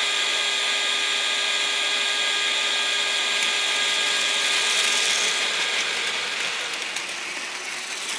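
Battery-powered Plarail toy train running: the small electric motor and gearbox give a steady whine, over a rattle of plastic wheels on plastic track. It eases off slightly near the end.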